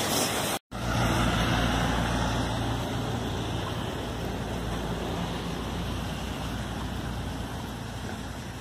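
Steady rushing noise of a flooded creek's fast-moving water, with a low rumble underneath. The sound cuts out completely for a split second under a second in, then returns and slowly fades.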